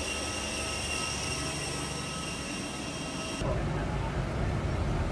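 Steady high whine of a jet aircraft standing on the apron, several thin tones over a rushing hiss. About three and a half seconds in it cuts off abruptly, replaced by the louder low rumble of the airport bus's engine heard from inside it.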